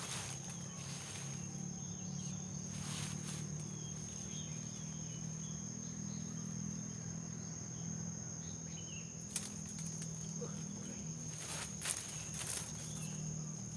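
Insects trilling steadily in one high, unbroken tone over a low steady hum, with a few brief rustles of handling or movement.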